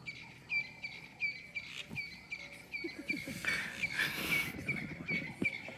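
A steady rapid series of short, sharp, high chirping calls, about three a second, from an animal. A brief hissing rush comes through about three and a half seconds in.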